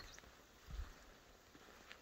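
Near silence: faint outdoor ambience, with one soft low thump a little under a second in and a brief faint high chirp near the end.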